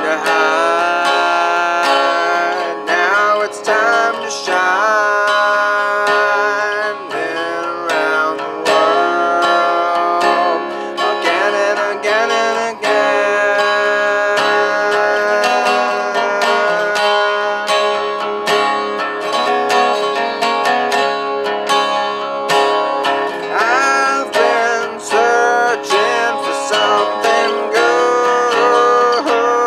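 Resonator guitar fingerpicked in a blues style, a steady run of quick plucked notes with some bent notes.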